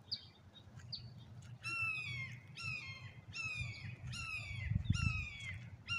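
Hawk screaming: a rapid series of about six downslurred screams, starting nearly two seconds in.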